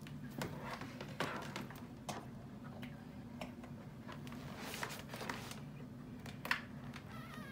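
Newborn puppies suckling at their mother, with irregular soft wet clicks and smacks, over a steady low hum.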